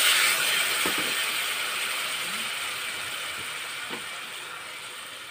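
Spice paste mixed with water sizzling in hot oil in a kadai of potatoes and cauliflower stalks. The hiss is loud at first and slowly dies down, with a couple of light knocks of a metal spatula against the pan.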